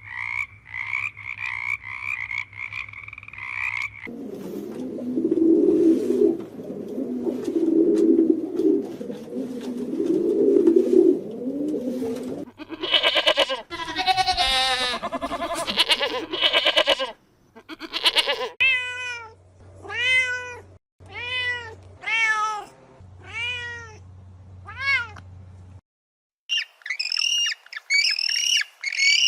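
A string of different animal calls one after another. Frogs croak for the first few seconds, a low call follows, then a run of about ten repeated falling calls, and after a short pause quick bird chirps near the end.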